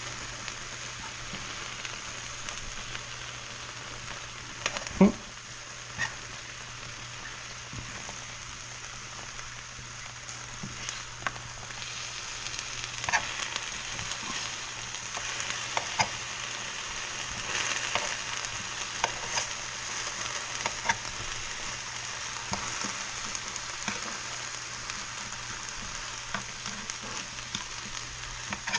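Food sizzling in oil in a hot pan: a steady frying hiss dotted with small crackles and pops, with a single knock about five seconds in.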